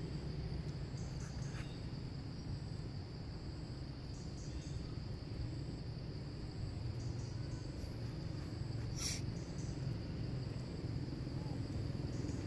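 Steady high-pitched insect drone over a low background rumble, with short faint high chirps now and then and one brief sharp high sound about nine seconds in.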